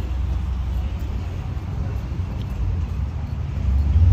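Low steady rumble of road traffic, swelling louder near the end.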